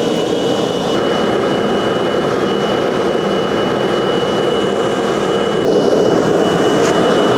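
Gas forge burner running steadily, a continuous roar of air and flame with a steady high whine over it.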